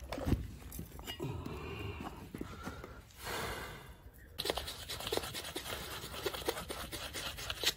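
A metal scraper scraping and chipping baked moulding sand off a freshly cast aluminium pot, as a rapid run of scrapes from about halfway in. A sharp knock comes just after the start.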